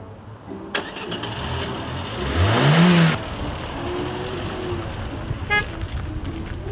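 1997 Renault Clio hatchback's engine revving as the car drives off, the engine note rising steeply about two seconds in with a rush of road noise, then running steadily as it moves away.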